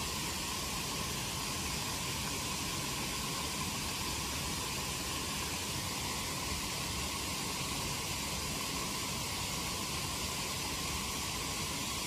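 A steady, even hiss that holds the same level throughout, with no bird call or other distinct sound standing out.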